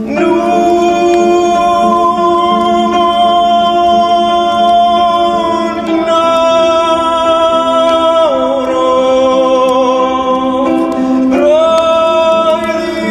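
Background music: a singing voice holds long notes, shifting pitch a few times, over a steady drone.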